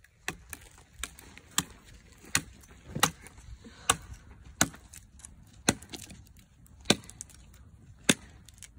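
Campfire of dry branches burning and crackling, with sharp, irregular pops about once a second as the fire grows.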